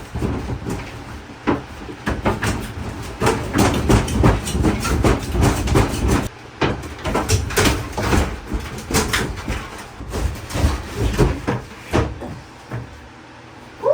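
Rapid, irregular clattering and knocking, with a short pause about six seconds in and thinning out near the end.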